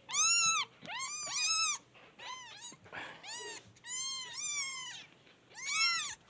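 Two-week-old kittens mewing: a string of about eight high, thin calls, each rising then falling in pitch, with some calls from different kittens overlapping.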